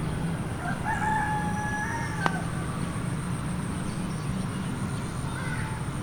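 A rooster crowing once, a drawn-out call lasting about a second and a half, followed by a single sharp click. A steady low hum runs underneath.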